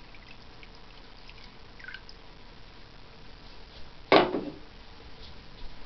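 The last of a pour of water from a glass jar into a steel pot: a thin trickle and a few light drips. About four seconds in comes a single sharp knock with a short ring.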